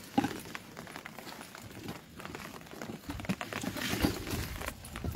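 Irregular rustling, scuffing and footsteps of people walking, with handling noise from a handheld phone and a sharp knock just after the start.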